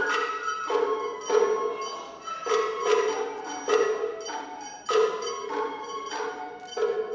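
Japanese hayashi dance accompaniment: tsuzumi hourglass hand drums struck by hand, sharp ringing strokes about every half second to second, with a held high melody line sounding over them.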